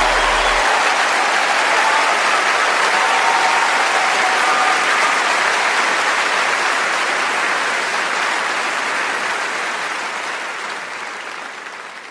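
Audience applauding: dense, steady clapping that slowly fades away over the last few seconds.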